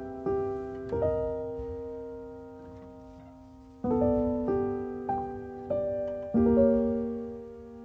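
Background piano music: soft notes and chords struck one after another, each ringing out and fading, with a lull of nearly three seconds in the middle where the notes just die away.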